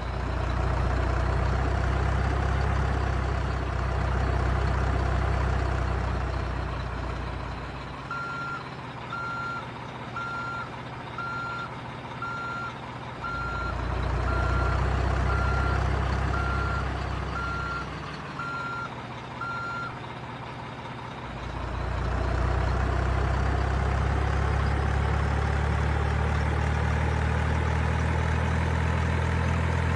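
RC dump truck's sound module playing a steady diesel-engine sound. In the middle a reversing beeper sounds about once a second, a dozen times, while the engine note drops back.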